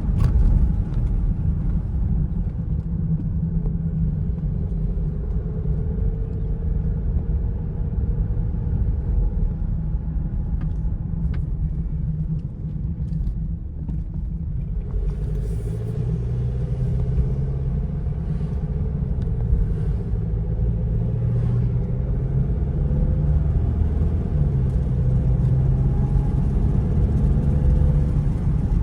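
Car driving along a road: steady low engine and road rumble. It eases off about halfway through, then the engine note picks up again.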